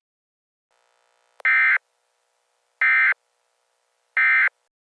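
Emergency Alert System end-of-message data bursts: three short, identical bursts of buzzy digital tone, about a second and a half apart, signalling that the alert is over.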